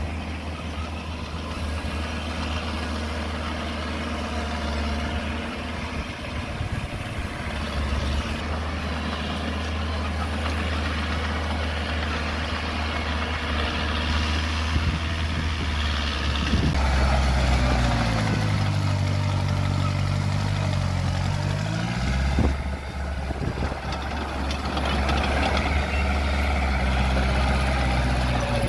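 Heavy diesel engines of earthmoving machinery running steadily. About two-thirds of the way through, one engine's pitch drops and then climbs back over several seconds.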